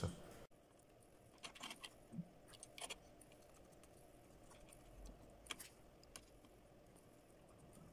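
Near silence with a few faint, scattered light clicks from tweezers and a soldering iron tip handling a small surface-mount voltage regulator as it is desoldered from a circuit board.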